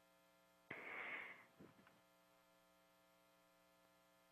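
Near silence with a faint steady electrical hum, broken about a second in by a brief soft rush of noise.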